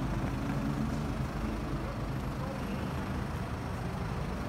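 Road traffic passing: a steady low rumble of vehicle engines and tyres, with an engine hum that is strongest in the first second or so.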